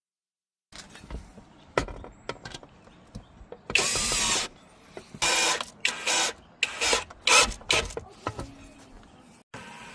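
Installation work on an electrical outlet box: a small motor-driven tool, such as a cordless drill driving screws, runs in a series of short bursts of about half a second each, amid scattered clicks and knocks.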